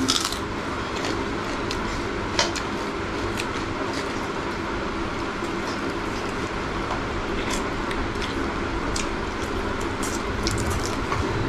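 Eating sounds of people chewing spicy chicken feet held in the hand: wet chewing and smacking with scattered small sharp clicks, the loudest right at the start and about two and a half seconds in.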